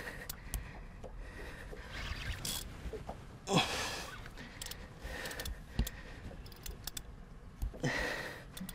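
Spinning fishing reel cranked in a few short, uneven bursts of scraping and clicking while the rod is bent under a hooked fish.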